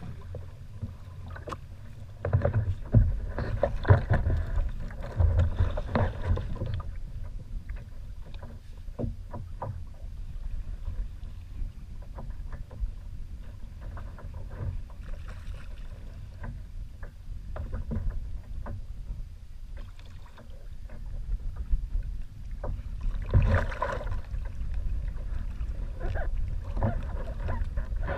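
Wind on the microphone and choppy water around a sit-on-top kayak, a steady low rumble, with bursts of knocks and rustling from handling on the kayak a few seconds in and again near the end.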